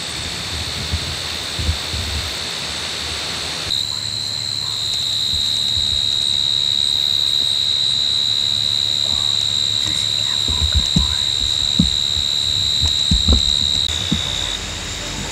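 Insects singing a steady high-pitched drone in a late-summer field. The drone gets louder about four seconds in and drops back near the end, and a few low knocks on the microphone come near the end.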